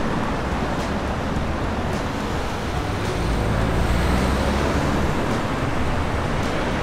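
Road traffic at a city intersection: cars driving past in a steady wash of engine and tyre noise, swelling as one passes close about four seconds in.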